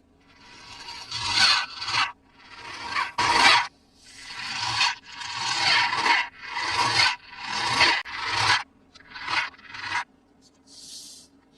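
Toy packaging being rubbed and scraped by hand in a series of rasping strokes, each swelling and then stopping short, the last one fainter.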